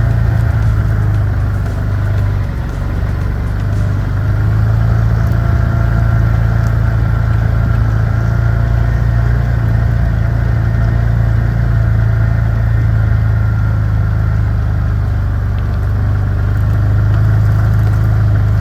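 Chinese mini excavator's engine running steadily with a strong low hum, dipping slightly in level about two and a half seconds in.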